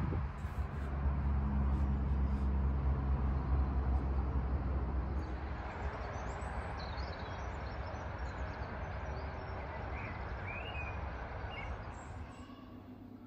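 Outdoor ambience: a vehicle's engine hum fades away over the first few seconds, and birds chirp now and then in the second half.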